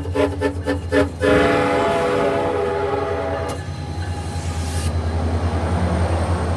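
SunRail diesel commuter train's horn sounding rapid short toots, about four a second, that run into one long continuous blast about a second in, the end of a build-up of honking. The horn cuts off abruptly after a few seconds, leaving the train's rumble and a steady low engine drone.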